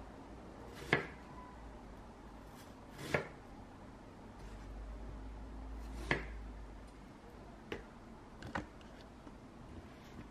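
Chef's knife cutting through watermelon and tapping down on a plastic cutting board: about five sharp strokes spaced a second or more apart, the loudest about a second in.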